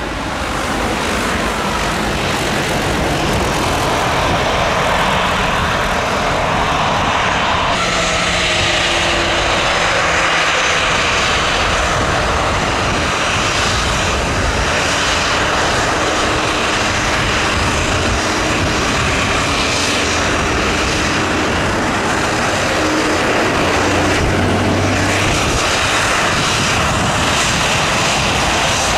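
Aircraft engines running loud and steady as a plane operates close by, with a faint whine falling in pitch over the first several seconds.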